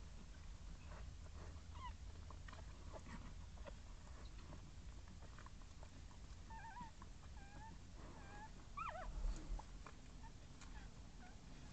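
Newborn puppies squeaking and whimpering: short, high, wavering cries scattered throughout, bunched together about two-thirds of the way in, with soft scattered clicks.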